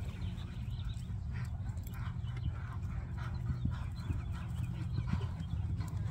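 Gray horse cantering on arena sand: soft, rhythmic hoofbeats and breathing about every half second, over a steady low hum.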